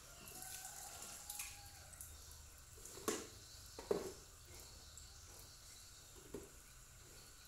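Two clunks of a plastic bucket about a second apart, as it is set down on the concrete under a water tap, with a softer knock later, over a faint steady outdoor hiss.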